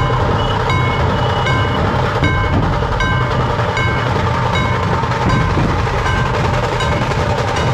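Dhol-tasha troupe playing: many dhol drums in a dense, steady din, with a short metallic ring repeating about every three-quarters of a second.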